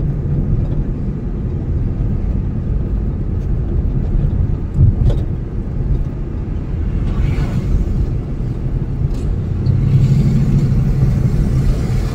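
Road noise heard inside the cabin of a moving car: a steady low rumble of engine and tyres, swelling slightly about ten seconds in.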